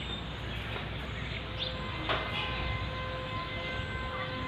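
Steady low outdoor rumble with faint steady whining tones above it, and one brief sweep about two seconds in.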